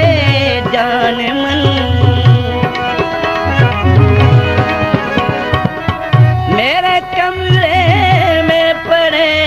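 Instrumental interlude of a Pakistani folk ghazal: tabla playing a steady rhythm under a melody line with wavering, sliding notes.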